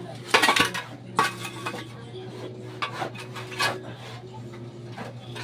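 Metal shovel blade scraping and clanking on a concrete floor while scooping soil and rubble: four or so separate sharp strokes at irregular intervals.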